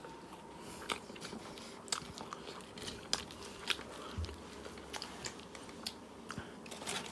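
A person chewing a mouthful of butter naan and chicken curry close to the microphone, heard as faint, irregular soft clicks.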